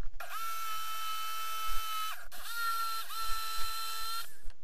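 Electric jigsaw cutting an itoba hardwood board, its motor giving a steady high whine. It cuts out and restarts twice, sags in pitch briefly under load past the middle, and stops shortly before the end.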